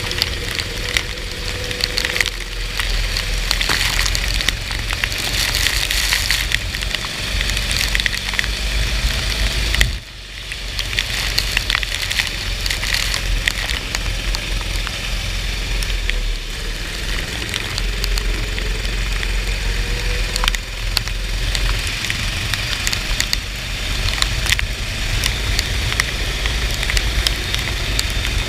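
Kart running on a soaked track: a steady low rumble of engine and wind, overlaid with dense crackling from rain and spray. The sound drops sharply for a moment about ten seconds in, then picks up again.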